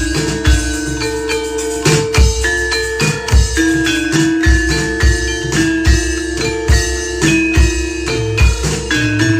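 Music played through a sound system: struck mallet-percussion tones, some notes held, over deep drum beats that recur through the passage.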